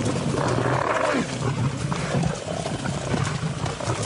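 Lions growling as they attack a bull, with one loud growl in about the first second and lower growls after it.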